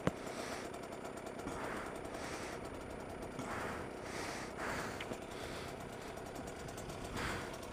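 Dirt bike engine idling quietly with a rapid, even putter, with soft swells of breath over it and a single sharp click right at the start.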